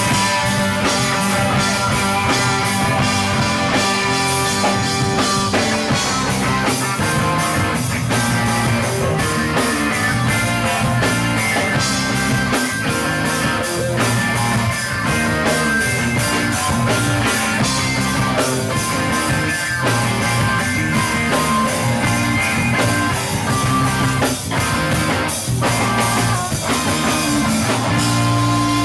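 Live rock band playing an instrumental jam: electric guitars over a drum kit, loud and continuous.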